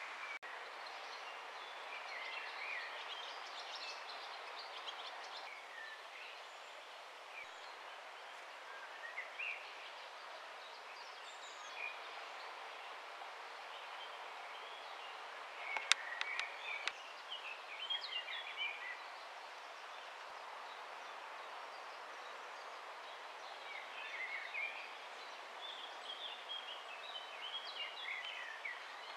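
Birds calling and chirping in short scattered phrases over a steady outdoor background hiss, with a single sharp click about halfway through.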